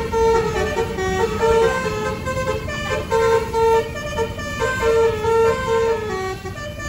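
A bus's multi-tone telolet horn plays a quick tune of short, steady notes that jump between pitches, over the low rumble of the bus's engine.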